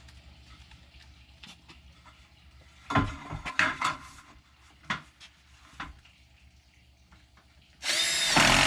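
A few knocks and clatter of handling material, then near the end a cordless drill driver whirs loudly at speed, driving a screw into the trim.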